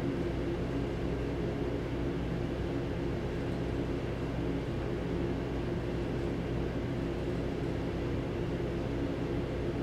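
Steady mechanical hum of a train standing at a station, with a few low steady tones and no whistle.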